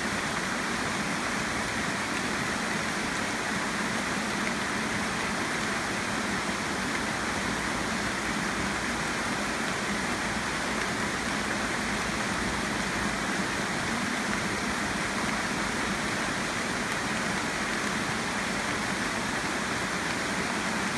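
Heavy tropical rain falling steadily on rainforest foliage and palm fronds, an even, unbroken wash of noise at a constant level.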